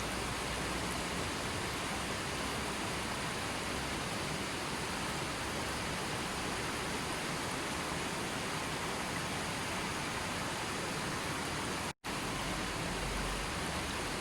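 Steady, even rushing of falling water, broken by a brief moment of total silence about twelve seconds in.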